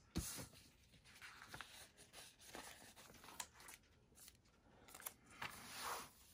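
Faint rustling and soft, scattered taps of a thin-papered Hobonichi A6 planner and sticker sheets being handled and moved about, with a louder rustle of paper near the end.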